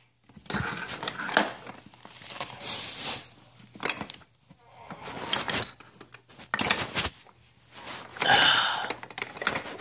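Metal hand tools clinking and rattling in a soft tool bag as a hand rummages through it, with rustling, in irregular bursts separated by short pauses.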